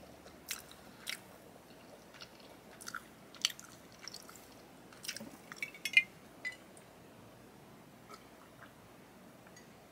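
Close-miked mouth sounds: chewing and wet lip smacks and finger licking, a scatter of sharp clicks, loudest about six seconds in, fading to a few faint ticks near the end.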